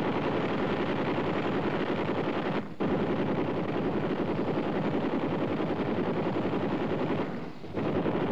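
Helicopter-mounted M60 machine guns of the UH-1B's XM6 kit firing 7.62 mm rounds in long continuous bursts. The fire breaks off briefly about two and a half seconds in and slackens again near the end.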